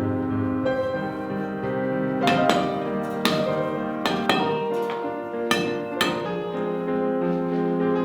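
Background music with sustained piano-like keyboard notes, with several sharp knocks landing among the notes.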